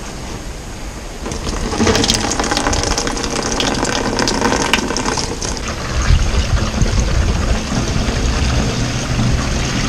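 Liquid gushing and splashing steadily, with scattered sharp clicks in the middle and a heavier low rumble in the second half.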